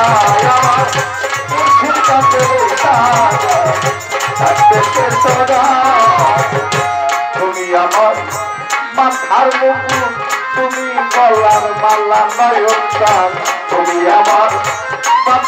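Bengali folk ensemble playing an instrumental interlude: a wavering melody line over a rapid hand-drum pattern, which thins to sparser drum beats about halfway through.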